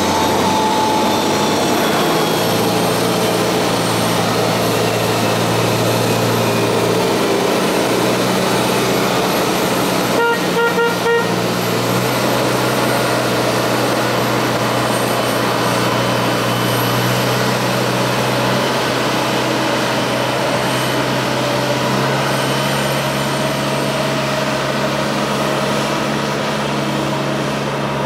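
Steady loud ramp noise of a pushback tug's engine and the Airbus A330-200's jet whine as the airliner is pushed back, with a short run of horn toots about ten seconds in.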